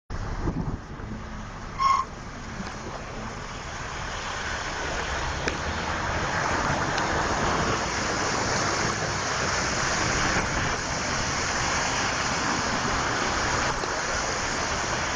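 Heavy rain and car tyres splashing through flood water on a street, a steady rushing noise that grows louder over the first few seconds. A short high beep sounds about two seconds in.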